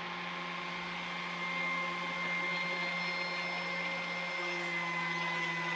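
Biscuit joiner motor running steadily, its slot-cutting blade spinning with a hum and a high whine, as a laminated wooden landing-net frame is fed along it to cut a groove. The whine dips slightly in pitch about four seconds in.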